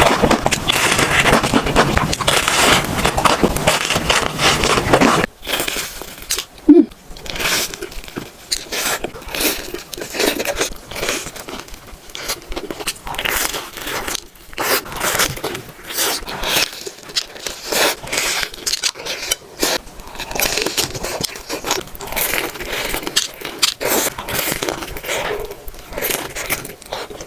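Close-miked eating sounds: crispy batter on a mozzarella corn dog crunching and crackling with repeated bites and chewing. The first five or so seconds are a denser, steadier stretch that cuts off suddenly.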